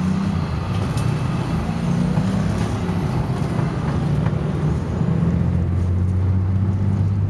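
Engine of a double-decker bus running as the bus drives along, heard from inside the upper deck. The low engine note shifts a few times, then settles into a steady low hum about five seconds in.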